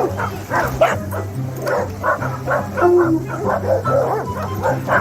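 A dog barking and yipping in quick, repeated short bursts, over background music.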